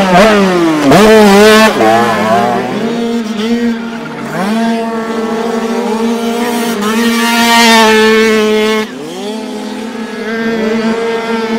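Several 49cc two-stroke dirt bike engines revving: one holds a steady note while others rise and fall in pitch as they accelerate and back off. Loudest near the start and again about eight seconds in, dropping away sharply just after.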